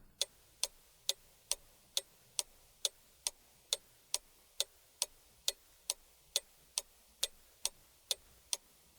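Clock ticking steadily, a little over two ticks a second: a timer marking thinking time for a task.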